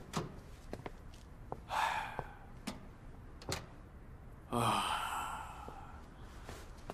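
A man's breathy sigh about two seconds in, then a longer sigh at about four and a half seconds that starts with a short catch of voice, with a few faint clicks between.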